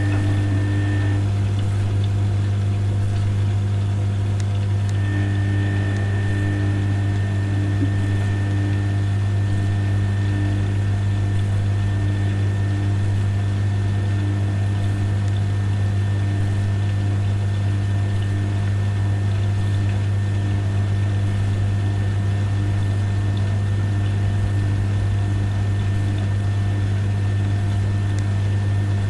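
Rex Input RL12X front-loading washing machine running its 40° wool cycle, with water in the drum: a steady low hum, and over it a tone that pulses evenly from about five seconds in.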